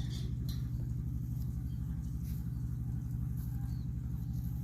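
An engine running steadily with a low, even hum that does not change.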